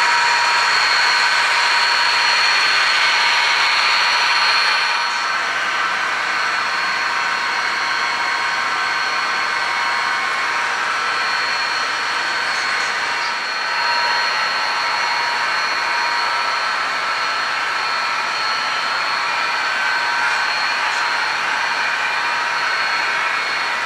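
HO-scale model diesel locomotives running on a layout: a steady whirring with several high whining tones. It drops a little in level about five seconds in.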